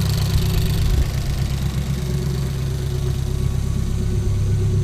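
Ford Focus race car engine idling steadily on its first start after crash repairs, cold and warming up to temperature; it sounds healthy.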